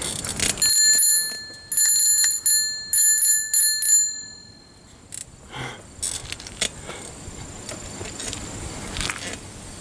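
Bicycle bell rung over and over in several quick runs of rapid strikes, a high ringing that stops about four seconds in.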